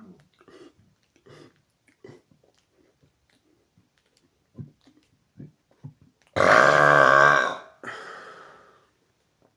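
A man's deliberate, loud burp about six seconds in, lasting about a second and a half and then trailing off more quietly for another second, after several faint short sounds.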